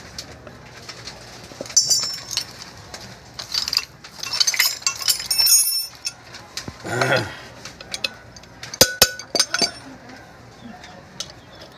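Metal tools clinking and tapping on an alternator while its bearing is fitted, irregular sharp knocks with a quick cluster of hard taps about nine seconds in.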